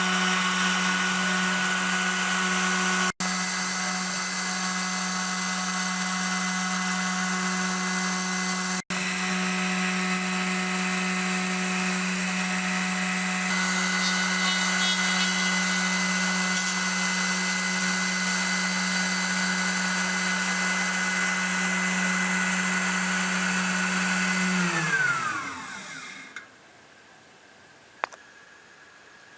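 CNC router spindle motor running at speed with a steady high-pitched whine. About 25 seconds in, its pitch falls as the spindle winds down and stops, leaving a faint hiss and a single click.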